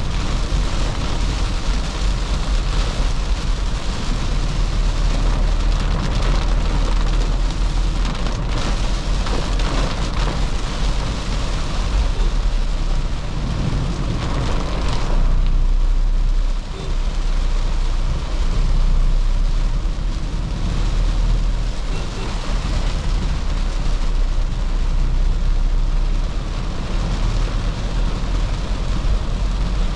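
2013 Toyota Fortuner's 3.0 L D4D four-cylinder turbodiesel running on the move, a steady low rumble mixed with the hiss of rain and tyres on the wet road.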